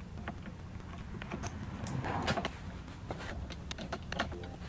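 Phillips screwdriver backing out small screws from a motorcycle handlebar control housing: scattered light metallic clicks and ticks, with a steady low hum underneath.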